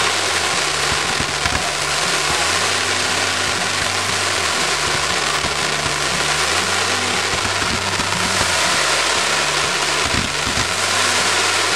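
Ground fireworks fountains spraying sparks: a steady, loud hissing crackle with scattered sharp pops.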